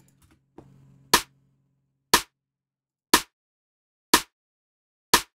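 A layered snare drum sample, two snare samples stacked, played back five times at about one hit a second: each a short, sharp crack. One layer's polarity is being flipped with the mixer's phase-invert button to check whether the two layers are in phase, and with it flipped the snare sounds worse.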